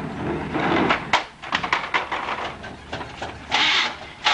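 Irregular knocks and clatter from the doors and body of an old Buick sedan as someone gets in, then a loud rush of noise about three and a half seconds in that comes back near the end.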